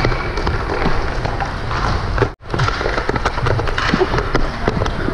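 Hockey rink play heard from a helmet camera: a steady noisy rush with many small clicks and taps of sticks, pucks and skates. The sound drops out for an instant about halfway through.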